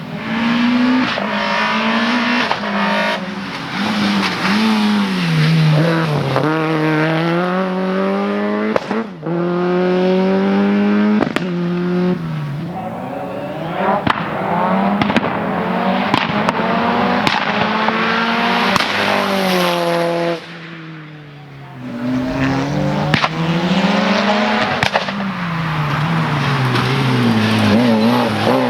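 Race car engines revving hard, rising in pitch and dropping again over and over as the cars accelerate, shift and lift off between slalom gates, with sharp pops and some tyre squeal. There is a short lull about two-thirds of the way through.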